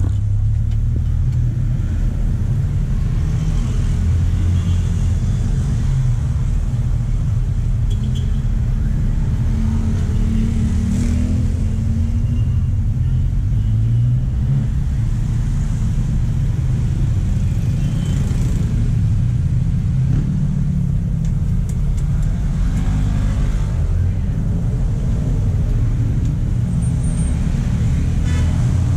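Steady road traffic: a continuous low rumble of cars passing on a busy highway close by.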